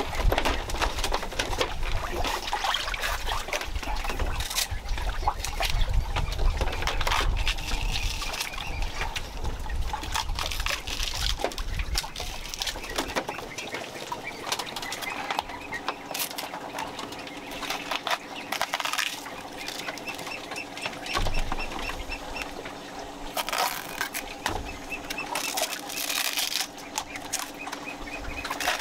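A knife scoring and slicing a peeled bamboo shoot, with woven bamboo baskets and shoots being handled on a bamboo floor, in many short clicks and rustles. Birds call in the background.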